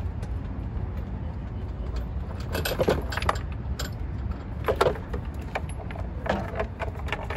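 Metal hand tools and loose metal parts clinking and rattling in a few short clusters, about two and a half, five and six seconds in, over a steady low rumble.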